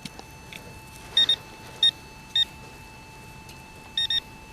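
Handheld metal-detecting pinpointer giving short, high-pitched beeps: a quick pair about a second in, two single beeps, then another pair near the end. It is sounding on a metal target in the dig hole.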